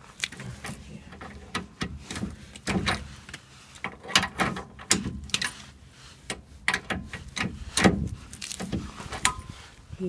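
Irregular metal clicks and clinks of a socket and wrench being worked on the front wheel hub's axle nut.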